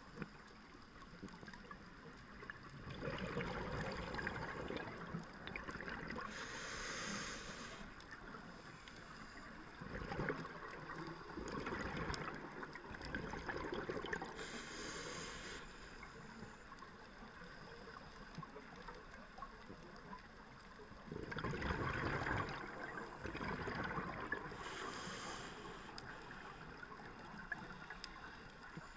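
A scuba diver breathing through a regulator, recorded underwater. There are three breaths, each a long bubbling rumble of exhaled air followed by a short high hiss.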